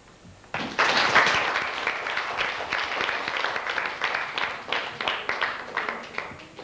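Audience applause that starts suddenly about half a second in and thins out to scattered separate claps before dying away near the end.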